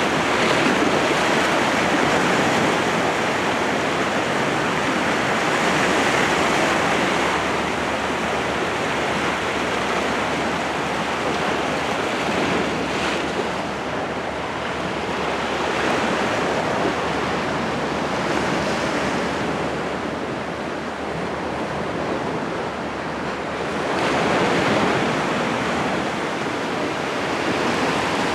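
Sea surf washing against the shore, a steady rushing that swells and eases every several seconds.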